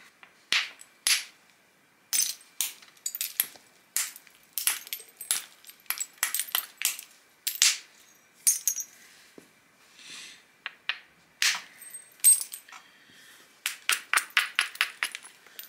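Flintknapping: a string of sharp clicks and small pops as little flakes are knocked off the edge of a stone biface held on a leather pad. The blows are irregular and come quicker near the end. These small removals raise the edge and prepare platforms for larger flakes.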